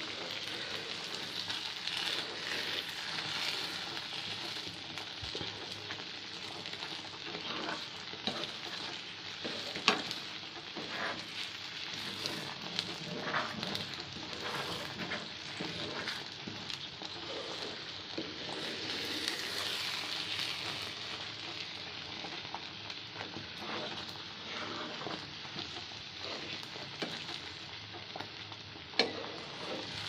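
Sarson ka saag sizzling in a pan on the stove as it is stirred with a spatula, with the spatula scraping through it and now and then knocking against the pan. The sharpest knocks come about ten seconds in and again near the end.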